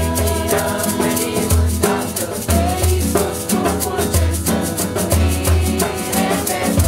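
A group singing a Romanian Christmas carol over an upbeat accompaniment with a repeating bass line, while hand-held shakers rattle in a quick, even rhythm.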